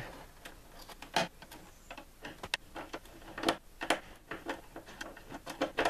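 Light irregular clicks and ticks of a screwdriver and stiff wire ends knocking against the terminals and bus bars of an RV power center as ground wires are moved into place, a dozen or so at uneven spacing.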